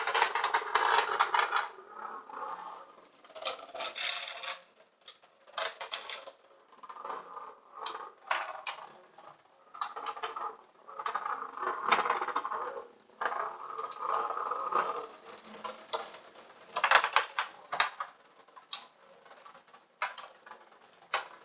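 Small vibrating Hexbug robot bug skittering through a plastic playset, rattling and clicking against the plastic walls and ramps in irregular bursts.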